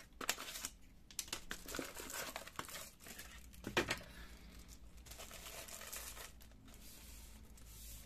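Packaging crinkling and tearing in irregular crackles as a new fuser fixing film is unwrapped, with one sharper crackle a little under four seconds in.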